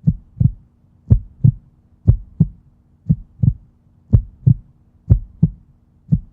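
Heartbeat-like double thumps, a pair about once a second in a slow, even rhythm, over a faint steady hum: an added outro sound effect.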